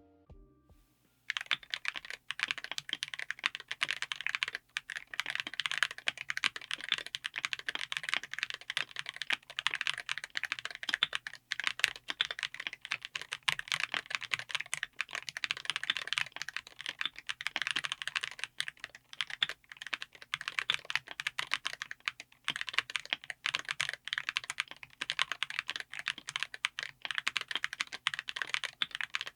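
Fast, continuous typing on a mechanical keyboard fitted with TTC Elf King HE magnetic linear switches in an aluminium case with an FR4 plate. The typing starts about a second in and runs as a rapid, even clatter of keystrokes.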